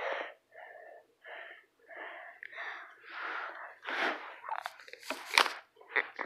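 A person whispering in short breathy bursts, with a couple of sharp clicks about five seconds in.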